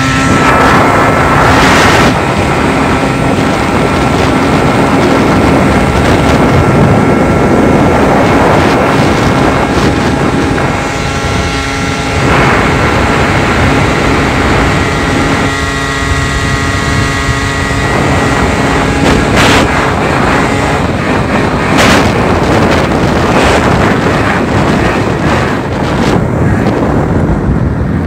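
Snowmobile engine running under way at speed, its steady drone mixed with wind rushing over the microphone. The engine note shifts a few times with the throttle, and a few sharp knocks come in the second half.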